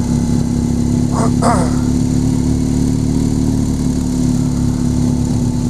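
BMW motorcycle engine running at steady, low revs while riding, a constant drone with a low rumble beneath it.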